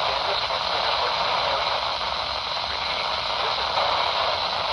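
Steady static hiss from a NOAA Weather Radio receiver on a noisy signal, with no clear words or alert tones coming through.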